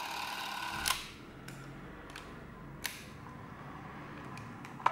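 Porst Reflex ZR 448 Super 8 camera's motor running, stopping with a click about a second in. A few sharp clicks follow as the camera's grip is handled.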